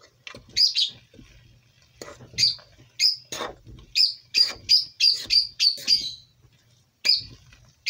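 Metal utensil scraping and knocking against a stainless steel pot while stirring thick, cheesy rice and vermicelli, each stroke giving a short squeaky chirp. The strokes come about three a second through the middle.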